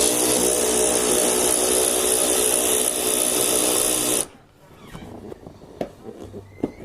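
Milwaukee M12 stubby 3/8-inch cordless impact wrench running steadily, backing out a seat bolt, then cutting off suddenly about four seconds in; a few light clicks and knocks follow.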